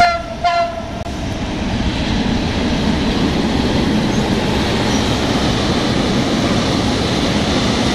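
Freight train of tank wagons, hauled by an electric locomotive, rolling past at close range: a steady rumble and rattle of wheels on the track. Two short, slightly falling toots of a train signal sound about half a second apart right at the start.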